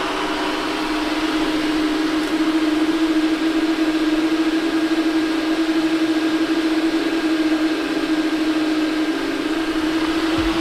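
Electric cooling fans for the race car's battery radiator running steadily with the car switched on and standing still: an even rush of air under a steady hum. The fans are wired to run permanently rather than on a thermostat.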